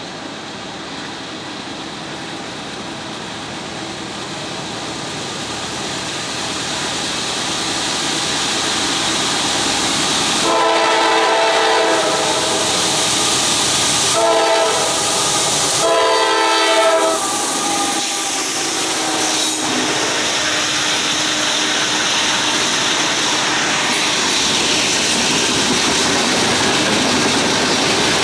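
A freight train's rumble grows louder as it approaches, and the lead locomotive, a GE CM44AC, sounds three horn blasts for a grade crossing, the last two close together. The locomotives then pass and a long string of loaded flatcars rolls by with steady wheel clatter.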